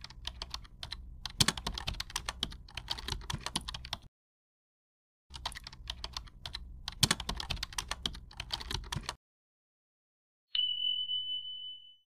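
Keyboard typing sound effect, rapid clicks in two runs with a pause between. Near the end comes a single high ding held for about a second and a half, fading away.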